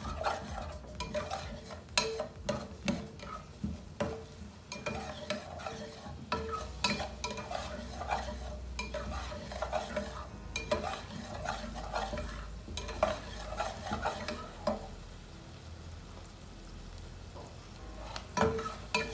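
A spoon stirring and scraping diced onions around a stainless steel saucepan, in short repeated scrapes and taps against the pan, while the butter sizzles under the onions as they sauté. The stirring pauses for a few seconds near the end.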